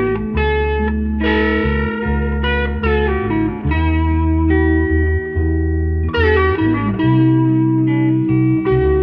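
Electric guitar lead, lightly overdriven through a Tube Screamer Mini into a Vox Valvetronix amp, playing a bluesy E-minor phrase with bent notes. Underneath runs a looped bass line made by an octave-down pitch shifter.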